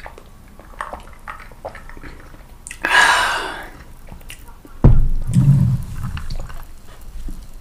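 Close-miked eating sounds of fried food: small wet mouth clicks, then a loud crisp bite about three seconds in. A heavy low thump near five seconds is followed by a moment of low, muffled chewing.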